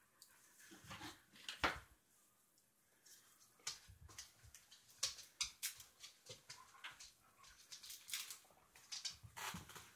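Two dogs moving about close by, with scattered soft clicks and taps, the loudest about one and a half seconds in.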